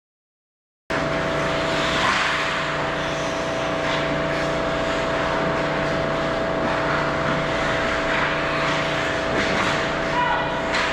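Ice-rink ambience that cuts in abruptly about a second in: a constant mechanical hum under a steady hiss of skates on ice, with a few sharp knocks of sticks and puck.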